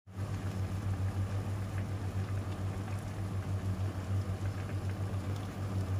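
A pot of instant noodle soup boiling on the hob, bubbling over a steady low hum.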